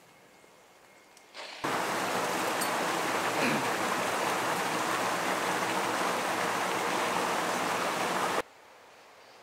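Loud, steady rushing water, like a stream or small waterfall, that cuts in abruptly about a second and a half in and cuts off just as abruptly near the end.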